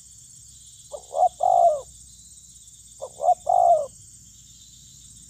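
Spotted dove cooing: two phrases about two seconds apart, each a couple of quick short notes followed by a longer, slightly falling coo.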